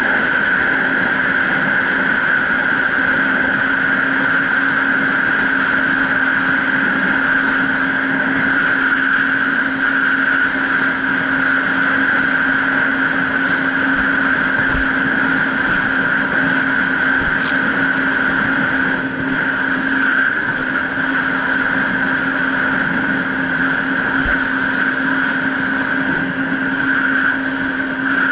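Jet ski engine running at a steady speed: a constant drone with a high whine, both holding one pitch with no revving.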